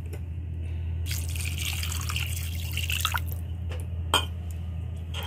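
Water being poured into a kadai of fried spiced potatoes and stirred in with a metal spoon, the spoon clicking sharply against the pan a couple of times in the second half.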